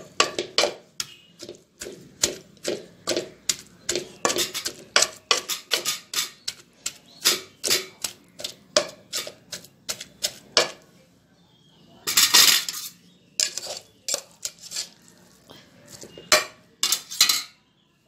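A wooden masher pounds boiled jackfruit pieces in a metal pressure-cooker pot, crushing them. It knocks about two to three times a second, pauses briefly, gives one louder clatter about twelve seconds in, then knocks again.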